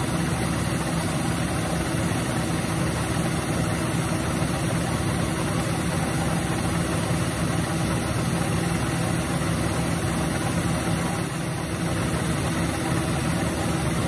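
John Deere tractor engine idling steadily, an even hum with no change in pitch.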